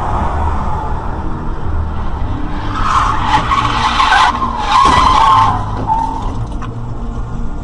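Car tyres skidding and squealing on the road in two loud stretches, about three seconds in and again about five seconds in, over steady road and engine noise.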